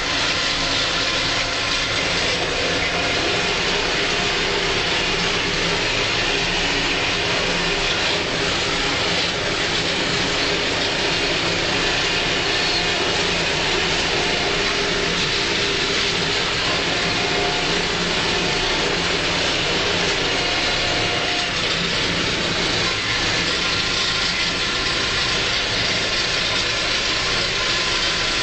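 Valtra 6800 Twintrac tractor's diesel engine running steadily under load while driving a 3-metre pasture topper that is cutting tall grass, heard from inside the cab as one continuous, even drone.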